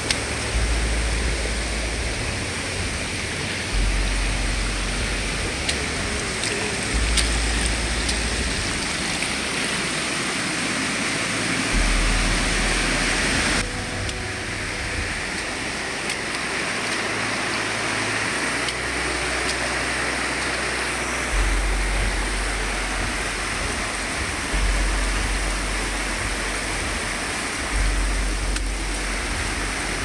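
Rushing water of a swollen monsoon stream: a steady, even noise with a low rumble pulsing in and out every few seconds underneath.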